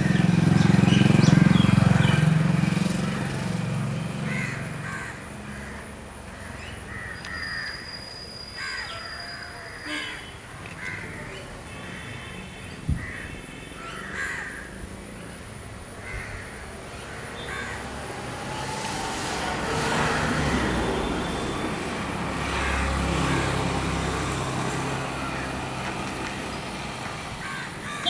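Crows cawing among other short bird calls in the trees, over a low rumble that is loudest in the first few seconds and again around twenty seconds in.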